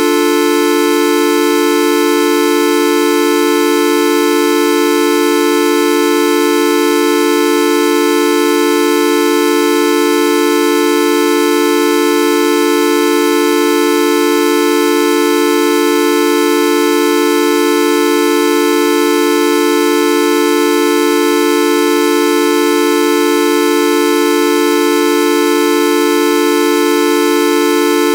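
The Videoup V1.2 sound effect: a loud, steady, horn-like electronic tone rich in overtones, held without any change in pitch or level.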